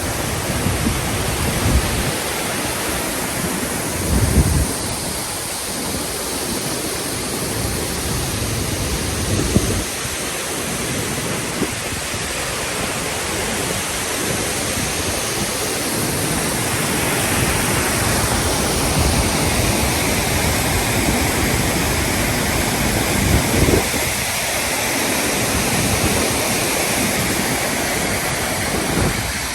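Waterfall pouring with force: a loud, steady rush of falling water, with a few brief low bumps, likely wind or handling on the microphone.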